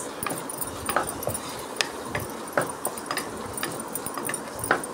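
A wooden spatula stirring and scraping frying masala in a stainless steel pressure cooker, knocking against the pot's side in irregular short clicks over a faint steady hiss.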